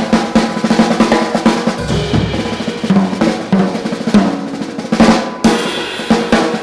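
Background music with drums playing a steady beat.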